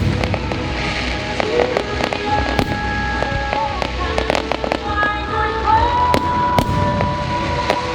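Fireworks bursting and crackling in quick, irregular succession over the show's music soundtrack, which has held tones and a melody.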